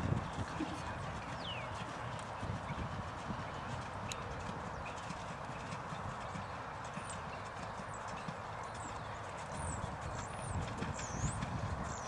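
A dressage horse's hooves on a sand arena, a steady run of soft hoofbeats as it works around the ring.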